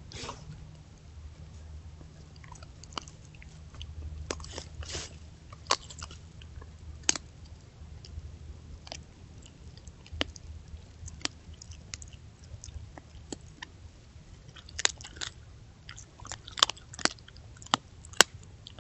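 Coyote chewing and crunching on deer bones and gut-pile scraps: irregular sharp cracks and wet chewing, with the loudest cracks near the end, over a steady low hum.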